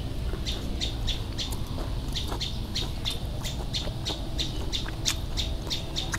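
A bird calling in a steady run of short, high chirps, about three a second.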